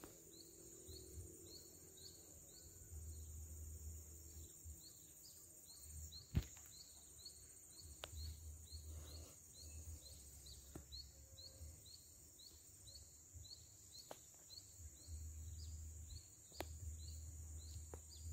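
Insects chirping and buzzing in swamp vegetation: a steady high buzz with a short high chirp repeating about twice a second. A low rumble comes and goes underneath, and a few sharp clicks stand out, the loudest about six seconds in.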